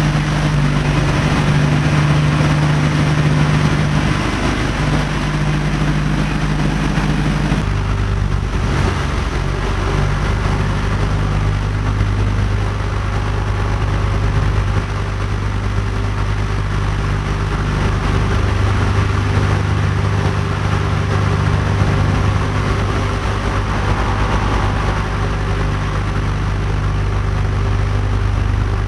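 North American B-25 Mitchell's twin radial engines droning steadily, heard from inside the glazed nose on final approach to landing. About eight seconds in the engine note steps down to a lower pitch and stays there.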